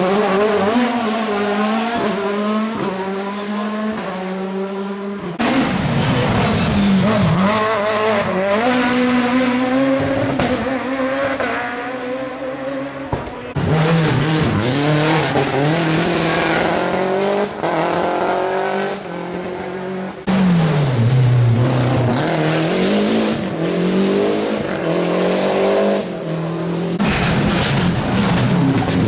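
Rally cars at full throttle, engines revving hard and rising and falling in pitch through gear changes and lifts. The audio jumps abruptly between different cars a few times.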